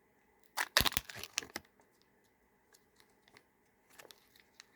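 A Kinder Joy egg's wrapper being torn open: a quick tearing, crinkling rustle lasting about a second, followed by a few faint light clicks and handling noises.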